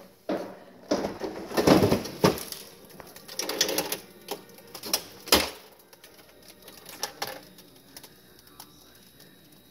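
Ice maker of a Whirlpool WRF993FIM refrigerator making a run of sharp clacks and knocks, with a rattling stretch around four seconds in, loudest around two and five seconds in, then tapering off to faint ticks. The owner blames it on a faulty ice maker and thrower unit.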